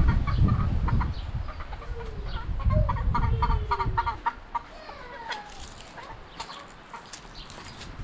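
Chickens clucking, with a quick run of short repeated clucks and a few falling calls in the first half. A low rumble underneath fades out about halfway through.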